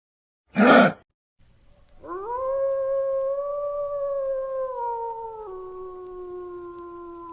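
A brief noisy call about half a second in, then a dog howling: one long call that rises at the start, holds steady, and drops to a lower pitch partway through.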